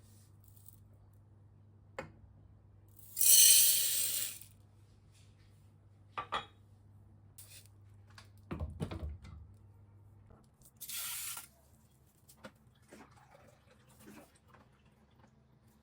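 Kitchen work sounds: a few short bursts of running or poured water, the loudest lasting about a second a few seconds in, with scattered clinks and knocks of pots and utensils and a dull thump about nine seconds in.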